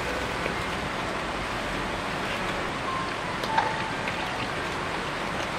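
Beef and mushrooms sizzling steadily on a small tabletop grill, with a single clink about three and a half seconds in.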